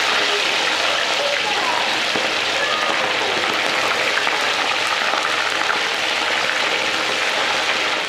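Whole fish deep-frying in hot oil in a wok: a steady sizzle with fine crackling as the oil bubbles hard around the fish.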